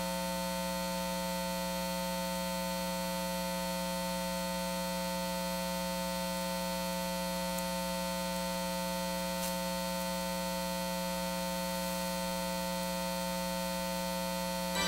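Steady electrical mains hum and buzz in the sound system, an unchanging drone with no other sound over it.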